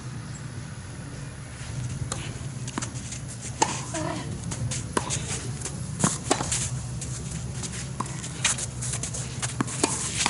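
Tennis rally: sharp pops of the ball coming off racket strings and bouncing, every second or two, with footsteps scuffing on a clay court.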